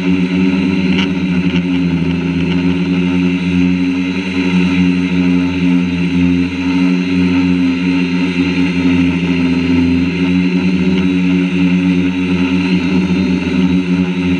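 Quadcopter drone's electric motors and propellers, heard from on board the drone: a loud, steady buzzing hum whose tones waver slightly in pitch as the drone flies.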